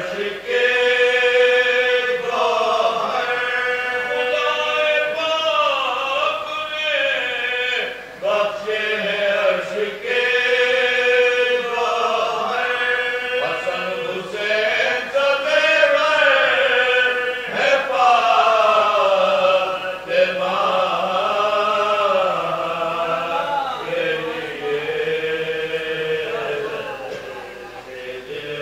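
A group of men reciting a marsiya, an Urdu elegy for Karbala, together in a chanted melody without instruments. They hold long notes that bend up and down, with short breaths between lines.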